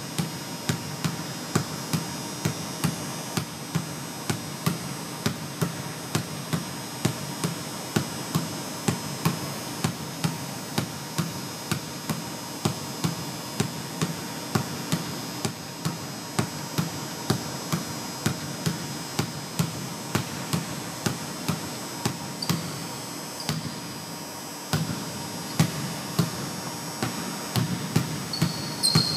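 Basketball being dribbled on a hardwood gym floor: a steady rhythm of bounces, about two a second, that thins out briefly about three quarters of the way through.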